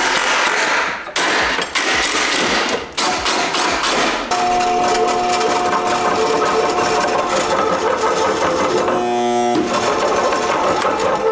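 A handheld power tool grinding on the end of a carbon-fibre rod for the first few seconds. Then a small benchtop metal lathe runs with a steady whine as it faces the rod end square.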